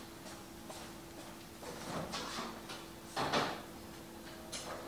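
Refrigerator door opened about two seconds in and shut about a second later as a bottle of coffee creamer is put back, over a faint steady hum.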